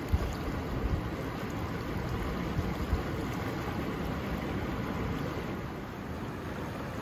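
Fast-flowing creek rushing over rock ledges, a steady dense rush of water, with a few low thumps of wind buffeting the microphone in the first few seconds.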